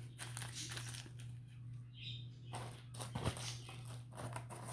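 Rustling and light handling noises from packaging and small bags as items are taken out of a box, with a few soft clicks, over a steady low hum.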